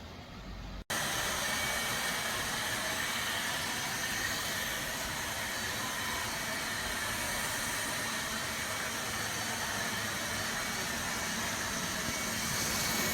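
After a short low hum and a sudden cutout about a second in, a robot vacuum cleaner's suction motor runs with a steady, even hiss.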